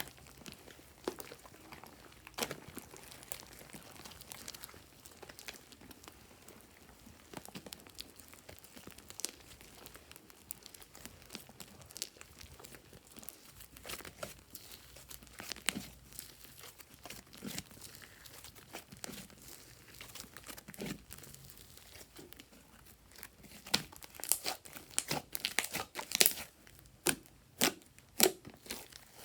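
Crinkling and crackling from slime-making materials being handled: scattered small clicks and crackles, coming thicker and louder near the end.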